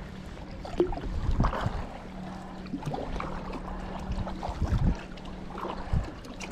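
Sea kayak paddle blades dipping and splashing in calm water, a stroke every second or so, over a steady low hum.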